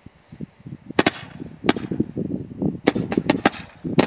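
Roman candle firing: a series of sharp bangs at uneven intervals as it shoots out its burning stars, several in quick succession near the end, with rough noise between shots.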